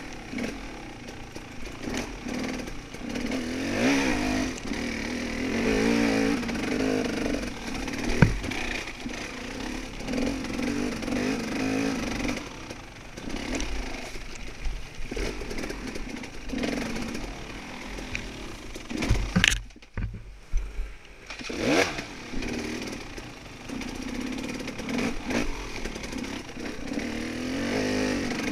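Off-road dirt bike engine revving up and down as it is ridden, with a sharp knock about eight seconds in and a brief drop in the engine sound around twenty seconds in.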